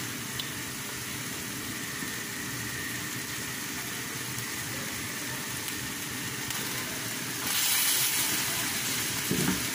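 Ground beef and diced bell pepper sizzling steadily in a stainless steel frying pan, the frying hiss growing louder about three-quarters of the way through as the meat is stirred with a wooden spatula.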